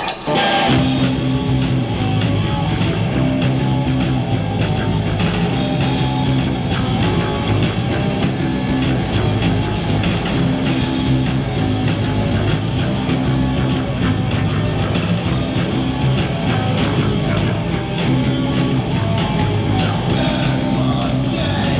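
Live rock band playing: amplified electric guitars and a drum kit, kicking in loudly just after the start and carrying on at a steady level.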